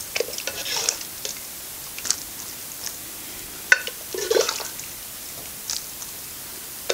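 A metal ladle scoops thick stew from a metal pot and tips it into a steel bowl. There are a few sharp clinks of metal on metal and soft wet splashes.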